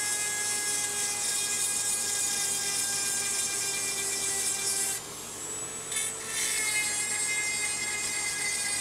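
Dremel rotary tool with its 1453 chainsaw-sharpening kit, its grinding stone running at high speed against the chainsaw chain's cutter teeth and sharpening them: a steady high-pitched whine with a grinding hiss. About five seconds in it drops quieter for about a second, then the grinding picks up again.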